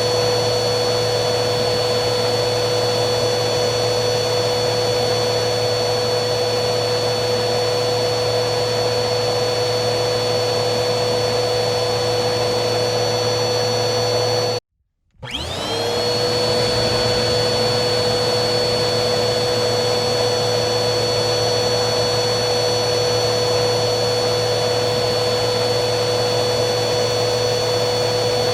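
Vacuum cleaner motor running steadily with a high whine over a rushing of air. About halfway through it cuts out abruptly for half a second, then starts again, its whine rising in pitch as the motor spins back up to speed.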